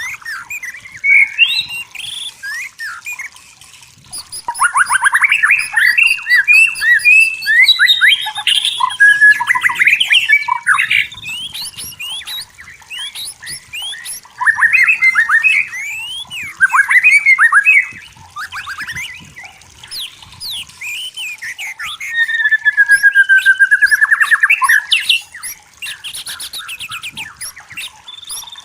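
White-rumped shama singing: loud phrases of fast trills, chatters and slurred whistles, each a few seconds long, with short pauses between them. Near the end comes a longer falling, buzzy whistle.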